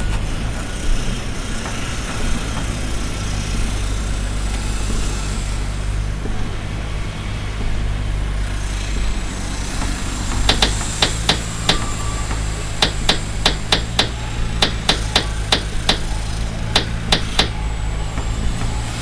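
A hammer driving plastic cap nails into roofing underlayment: about twenty sharp strikes in quick runs, starting about halfway through. A steady low hum runs underneath.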